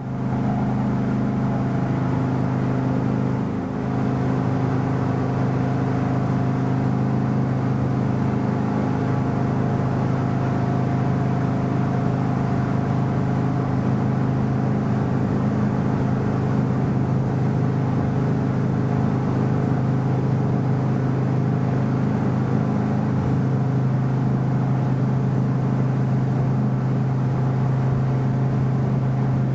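Motorboat engine running steadily at cruising speed, with a low, even drone and water and wind noise beneath it.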